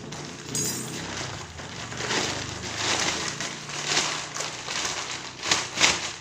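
Packaging being handled and unwrapped: irregular crinkling and rustling, with two sharp clicks near the end.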